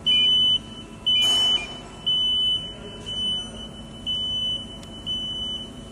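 Robot arm control panel alarm beeping: a high steady beep about once a second, each about half a second long, with a brief hiss about a second in. The alarm signals that the arm has moved out of its safety zone.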